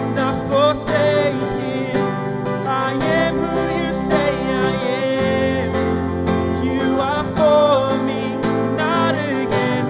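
Live worship music: a woman singing into a microphone over strummed acoustic guitar and keyboard.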